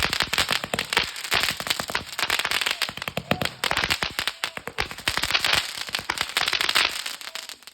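Consumer fireworks going off in a dense, rapid run of firecracker cracks and pops, many a second, that stops suddenly near the end.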